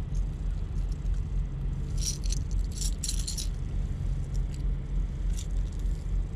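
The rattles inside a crankbait lure and its metal treble hooks clinking and jangling in short clusters as the hooks are worked out of a bass's mouth. The clusters are busiest from about two to three and a half seconds in, over a steady low hum.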